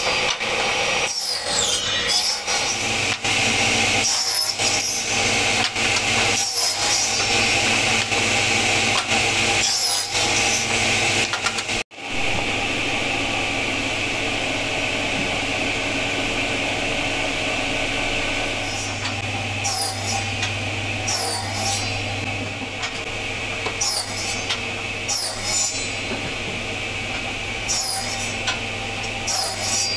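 Small electric table saw running with a steady hum, its blade cutting through short wooden blocks one after another. After a sudden break about twelve seconds in, a steady hum carries on with scattered light taps and knocks.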